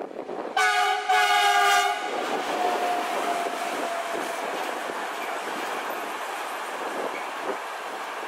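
Electric freight locomotive sounding its horn twice, a short blast then a longer one, as it approaches. A freight train of container and tank-container wagons then rolls past with a steady rumble.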